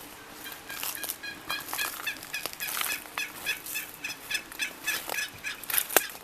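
Wild turkey calling in a rapid series of repeated notes, with a single sharp click near the end.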